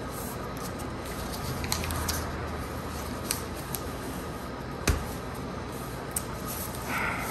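A sheet of paper being folded by hand into a paper airplane, creases pressed flat against the tabletop: soft rustling with a few light taps and one sharper knock about five seconds in.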